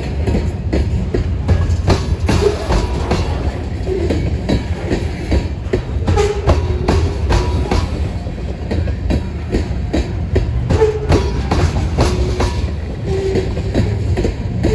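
Freight train of grain cars rolling past, steel wheels clacking rapidly over rail joints over a steady low rumble. Several short wheel squeals come in between the clacks.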